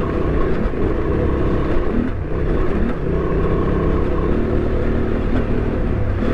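Honda Transalp 750's parallel-twin engine running under steady throttle while riding a rough dirt trail, mixed with wind rush and tyre and chassis noise. The sound dips briefly about two seconds in.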